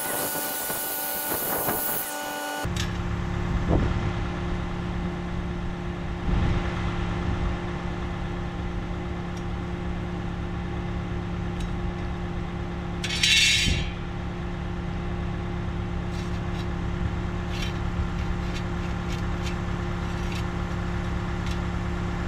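A power tool runs with a high whine and hiss for the first couple of seconds, then cuts off sharply. After that a Bobcat T66 compact track loader's diesel engine idles steadily, with a short burst of hiss about halfway through and a few light clicks near the end.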